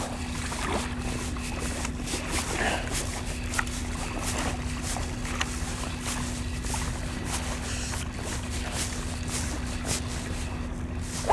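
Water lapping against a kayak's hull, with wind on the microphone and scattered small clicks and knocks. A faint steady hum runs underneath.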